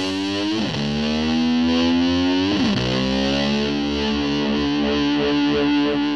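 Rock music: a heavily distorted electric guitar holding long sustained notes, with two quick slides down and back up in pitch.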